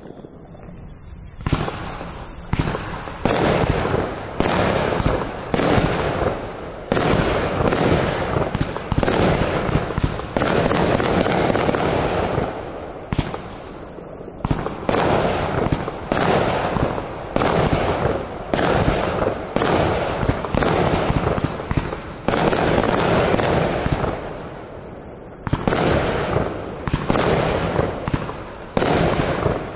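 Multi-shot consumer fireworks cake firing: a quick string of sharp launch reports and bursts, roughly one shot a second, with a hiss of burning tails between them. The shots start about a second and a half in and ease off briefly twice before going on.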